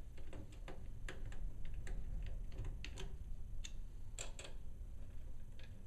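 Irregular small ticks and clicks of a screwdriver and screws as the replacement cooling fan is screwed down into its housing in the chassis, a few clicks a second at uneven spacing.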